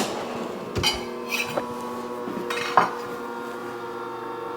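Kitchen utensils and dishes being handled: a handful of separate knocks and clinks, the sharpest about three seconds in, over a steady hum.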